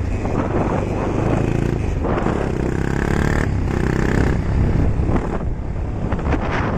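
Motorcycle running along a rough dirt road, with heavy wind buffeting the microphone. For about two seconds in the middle the engine's note comes through clearly above the wind.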